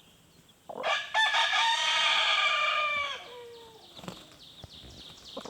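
A rooster crowing once, starting about a second in: one long crow of about two and a half seconds that drops in pitch at the end.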